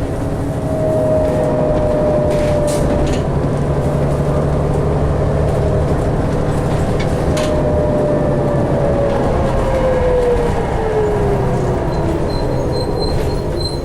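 Interior ride noise of a New Flyer D60LFR articulated diesel bus: a steady low rumble with a driveline whine that falls in pitch over the second half as the bus slows.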